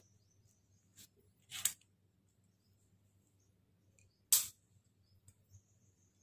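Handling noise from RCA cable plugs being turned over in the fingers: a few short clicks and rustles, the loudest about four seconds in, over a faint low hum.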